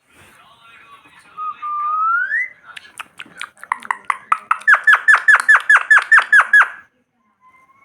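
Pet parrot calling: a rising whistle, then a fast run of about fifteen sharp, repeated calls at about four a second that stops near the end.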